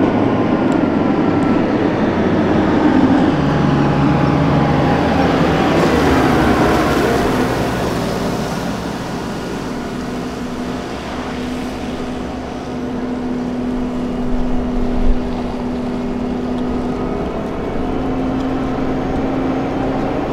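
Piranha 5 eight-wheeled armoured vehicle's diesel engine and tyres as it drives past. It is loudest in the first half, with its pitch falling as it passes about six to eight seconds in, then a little quieter with a steady engine note as it drives away.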